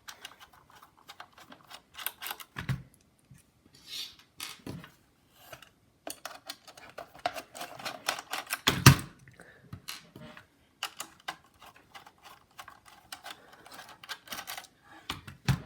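Precision screwdriver clicking and scraping as small nuts are unscrewed from a laptop motherboard, with irregular light clicks and a few louder knocks of tools or parts being handled.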